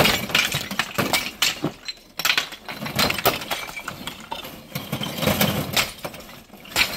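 Flat pieces of natural stone cladding being thrown off a truck bed onto a heap, clattering and clinking against one another and the steel bed in quick irregular knocks, with a short lull about two seconds in.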